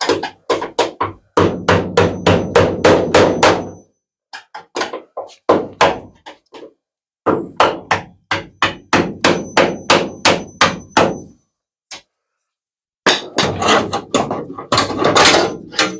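Hammer blows on the steel beams of a van's side panel, freeing them where the spot welds have been drilled out. The blows come in quick runs of about four a second, with short pauses between runs and a faint metallic ring.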